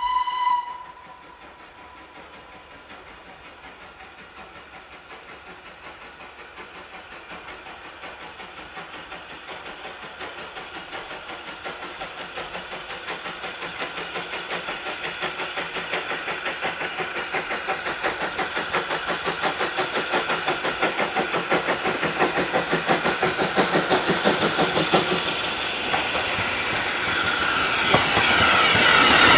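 Steam locomotive (LSWR T9 4-4-0 No. 30120) gives a short whistle blast, then approaches working steam, its rhythmic exhaust beats and hiss growing steadily louder as it comes close.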